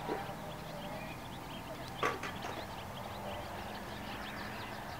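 Horse moving at a walk, its hooves clopping on the ground, with one sharper knock about two seconds in, over a steady low hum.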